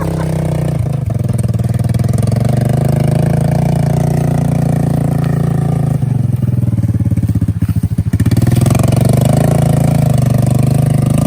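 ATV engine running under load through mud, easing off about six seconds in, then revving back up about two seconds later.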